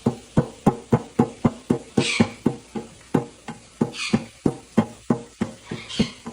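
A fast, steady rhythmic beat: short knocks about four times a second, with a hissing stroke about every two seconds.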